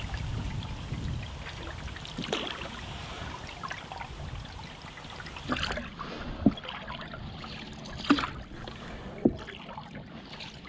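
Paddle strokes from a cedar strip canoe: the blade dipping and pulling through calm river water, with water trickling and splashing along the hull. About halfway through come brief sharp knocks, roughly every second and a half, in time with the strokes.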